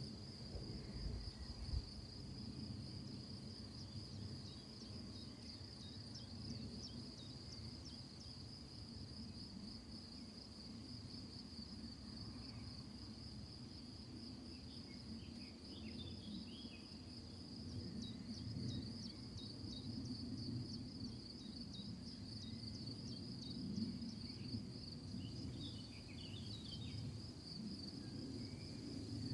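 Crickets trilling in one steady high-pitched tone over a low background rumble, with a few short higher chirps about halfway through and again near the end.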